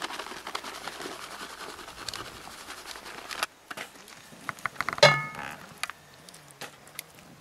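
A grated-cheese shaker shaken over spinach in a cast-iron Dutch oven: a fast, dense patter of small taps and rattles that stops suddenly about three and a half seconds in. About five seconds in comes a single sharp, ringing clink as the glass sauce jar knocks against the cast-iron pot.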